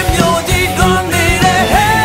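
Recorded Burmese song with full band backing and a steady beat; a melody line holds long notes and glides between them.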